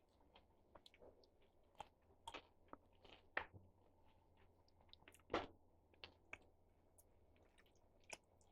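Faint chewing of a mouthful of string beans from adobong sitaw: soft, irregular crunches and mouth clicks close to the microphone.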